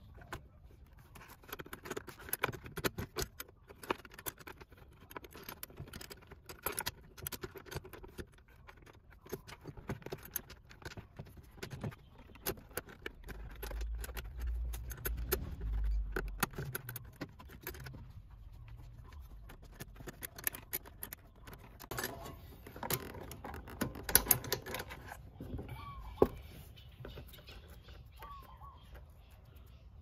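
Irregular clicks, taps and rustling of hands handling the front brake hose and cable and snapping them into their guide clip on a Vespa LX scooter's front fork and fender, with a brief low rumble in the middle and the loudest clicks about three quarters through. A few short bird chirps come in near the end.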